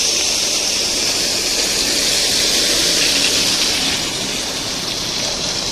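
A steady, loud rushing hiss with no clear pitch, strongest in the upper range, which eases slightly near the end.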